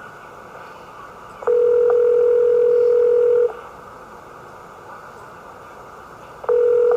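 Telephone ringback tone heard through a scanner's speaker from an intercepted 49 MHz cordless phone call, over steady radio hiss. There is one two-second ring about a second and a half in, then the next ring starts near the end: the call is ringing at the far end.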